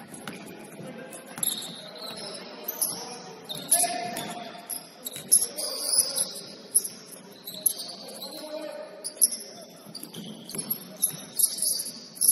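Basketball game in a gym: sneakers squeaking on the court in short high-pitched chirps, with sharp knocks of the ball bouncing throughout.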